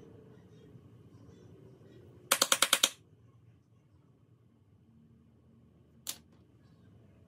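A quick run of about eight sharp, hard taps in well under a second, then a single tap a few seconds later.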